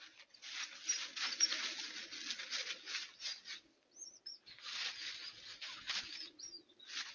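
Two coyotes scuffling in dry leaf litter: loud crunching and rustling of leaves in two long spells, broken by a short lull just before the middle, with a few brief high squeaks during the lull and again near the end.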